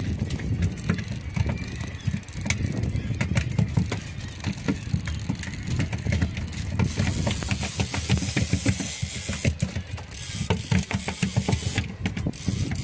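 A boat's engine running with wind buffeting the microphone, under a busy scatter of small knocks and clicks.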